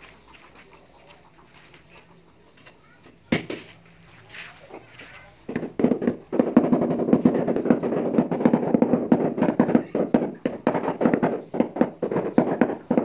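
A single knock a little over three seconds in, then, from about halfway, a loud rapid gritty scraping: loose mortar and grit being rubbed across a ceramic tile floor by hand.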